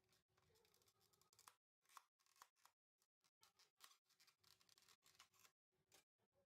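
Near silence, with faint, broken crackles and small clicks coming and going.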